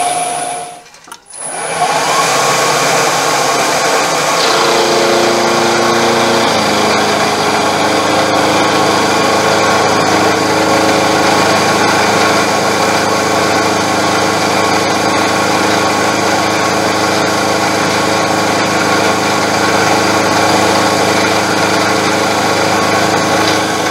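Milling machine spindle running with an end mill cutting a step into a steel vise jaw: a steady machine hum and whine with cutting noise. The sound drops out briefly about a second in, and its tone shifts about six seconds in, then holds steady.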